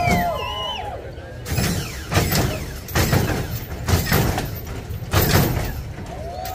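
Lowrider on hydraulics hopping: a run of heavy bangs and clanks, roughly one a second, as the car slams back down on the pavement.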